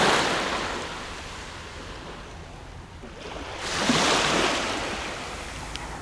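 Small sea waves washing up onto a pebble shore: one wash fading at the start and a louder one about four seconds in, each dying away.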